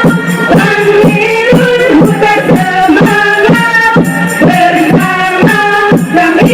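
Qasidah rebana music: a voice sings a melody over rebana frame drums beating a steady rhythm.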